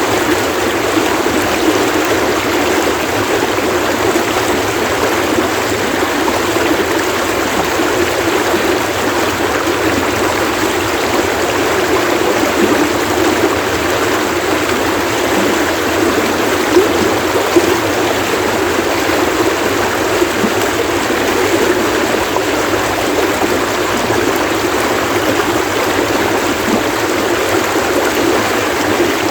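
Splashing running water of a stream, a steady rushing and gurgling with no break, with faint beeping insect calls beneath it.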